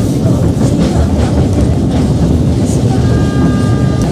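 Passenger train running at speed, heard from inside a carriage: a loud steady rumble with scattered clicks of the wheels over the rail. Near the end a faint, high, steady two-note tone sounds for about a second.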